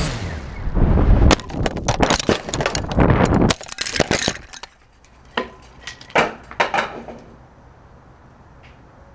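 A DJI F550 hexacopter's motors cut out abruptly and it falls with a rush of air. It hits a roof with a loud knock about a second in, followed by a rapid run of cracking, clattering knocks as the frame and propellers tumble. A few more separate knocks come a couple of seconds later as it comes to rest.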